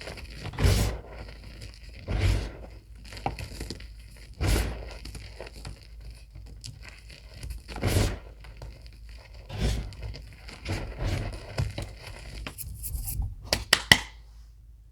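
Reformed gym chalk being crushed, crunching and crumbling in separate crunches every second or two, with a quick run of sharp cracks near the end.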